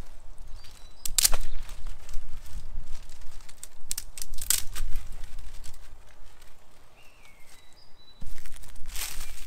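Rustling and crackling of a bundle of dry twigs as it is carried and handled, with footsteps on dry leaf litter; the loudest rustles come about a second in, midway and near the end. A few faint bird chirps sound behind.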